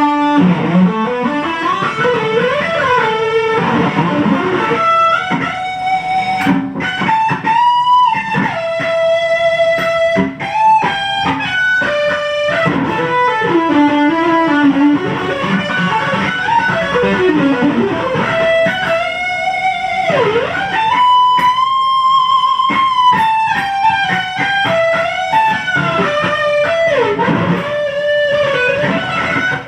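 Electric guitar played through a Kemper profiling amplifier, playing a lead melody of sustained single notes with string bends and vibrato.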